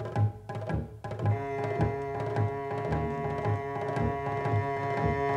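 Folk-style music score: a drum beats steadily about twice a second. A little over a second in, held instrumental notes come in over it.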